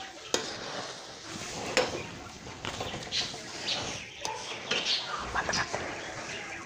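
A metal spoon stirring dry puffed rice through sticky jaggery syrup in an aluminium kadhai: a crisp rustle of the grains, with repeated scrapes and clinks of the spoon against the pan.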